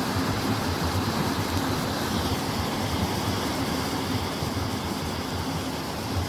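Steady rushing of a mountain river, an even noise with a low rumble underneath.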